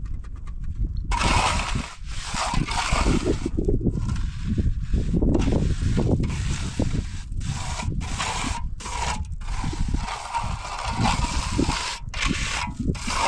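Rough scraping and rubbing in quick irregular strokes, setting in sharply about a second in, the sound of hand work on some rough material.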